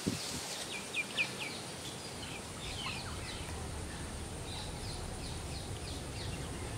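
Small birds chirping in short, high, downward-sliding notes: a quick run of about four about a second in, and more scattered chirps later, over a steady low background hum of open air.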